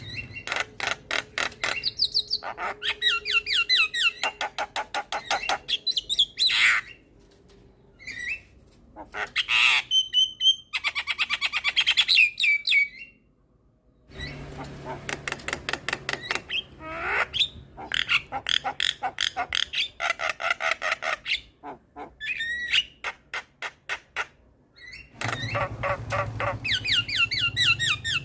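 Javan myna singing: long runs of rapid, repeated chattering notes mixed with squawks and short whistled slides, broken by two brief pauses.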